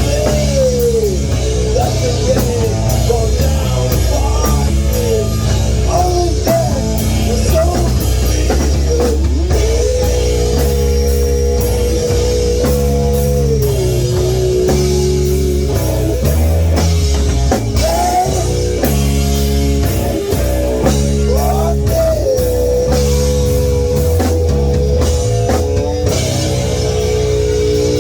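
Rock band playing an instrumental passage: an electric guitar lead with string bends and long held notes over drum kit and bass.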